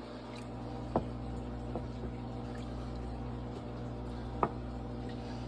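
Rocks knocking against each other as they are set into a water-filled plastic kiddie pool: two sharp knocks, about a second in and again near the end, with a fainter one between. A steady low hum runs underneath.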